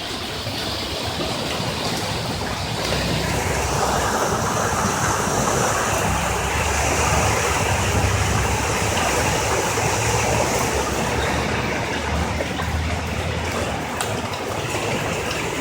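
Ford truck driving through floodwater, its tyres throwing up a steady rush of water over a low engine rumble that swells toward the middle and fades near the end.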